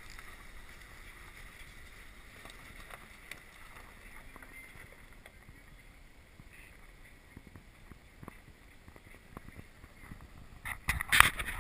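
Faint outdoor background noise with light wind on the microphone and a few small ticks. About a second before the end comes a short burst of loud knocks and rubbing.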